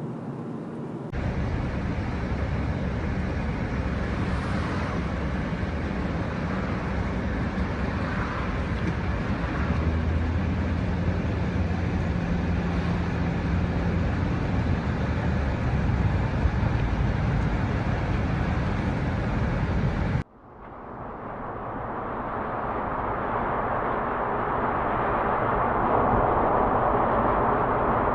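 Steady road and tyre noise with engine hum, heard from inside a moving car's cabin. About 20 seconds in, the sound cuts off abruptly and turns duller, then swells back up.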